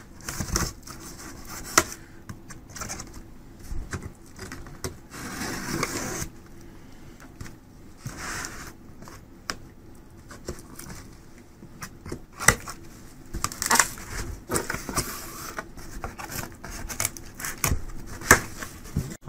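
Cardboard box being handled and opened by hand: irregular scraping and rubbing of cardboard, with scattered sharp clicks and taps.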